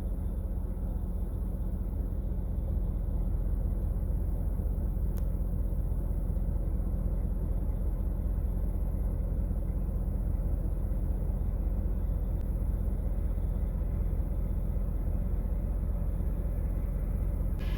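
Steady low rumble of a motor vehicle, with a single faint click about five seconds in.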